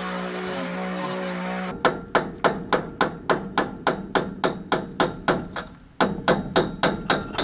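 Rapid, evenly paced hammer blows, about three a second, struck at the swing keel of a Catalina 25 sailboat, with a brief pause about a second before the end. A steady droning hum runs for the first couple of seconds before the hammering starts.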